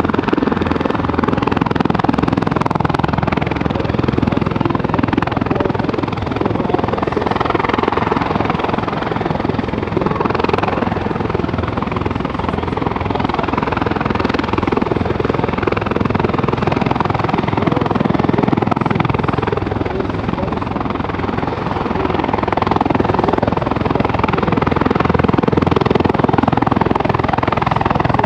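CH-146 Griffon twin-turbine helicopter flying overhead, its rotor chopping steadily over the turbine noise.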